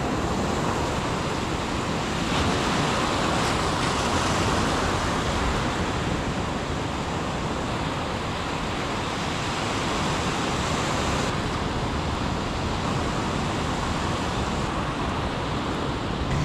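Sea surf washing onto the shore in a steady rush, with wind on the microphone.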